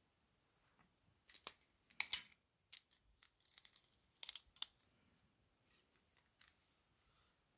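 Handling noise from a sketchbook and a plastic felt-tip marker: a handful of sharp clicks and taps with a brief light rustle, the loudest clicks about two seconds in and again around four and a half seconds.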